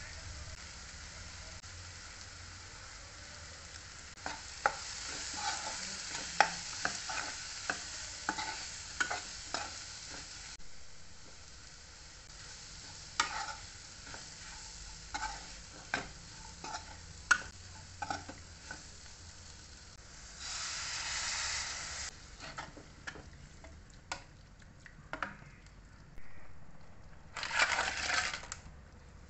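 Onion and tomato masala sizzling in a frying pan while a metal spoon stirs it, with many short clicks and scrapes of the spoon against the pan. Near the end, a louder burst of sizzling and clatter as crabs are tipped into the masala.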